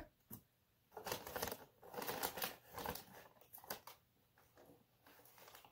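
Gift-wrapping paper rustling and crinkling in a run of short bursts as it is folded and pressed around a present, from about a second in to about four seconds in.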